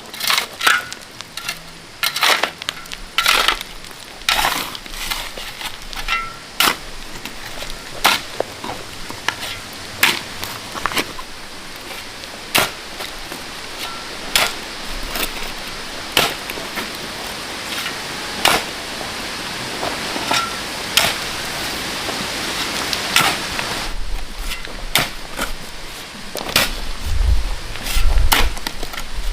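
Irregular knocks and scrapes of hand-tool work, one or two a second, over a hiss that swells in the middle, with a low rumble near the end.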